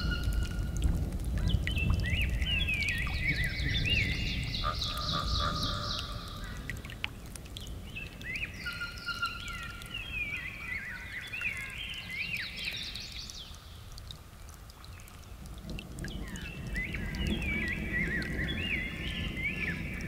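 A songbird singing repeated wavy, whistled phrases in three bouts of several seconds each. Underneath runs a low rumble of distant thunder, strongest at the start and again near the end.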